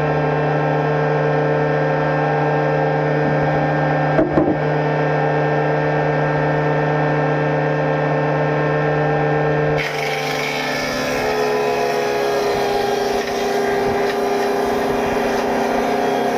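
Sawmill woodworking machine running steadily with a constant motor hum, and a sharp knock about four seconds in. About ten seconds in the sound turns harsher with added hiss and the pitch sags slightly, as under the load of wood being cut.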